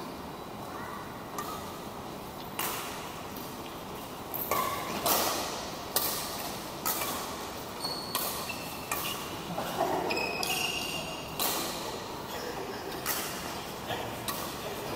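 Badminton rally: rackets strike a shuttlecock again and again, a sharp crack roughly once a second, echoing in a large hall. A few short high-pitched squeaks come about midway.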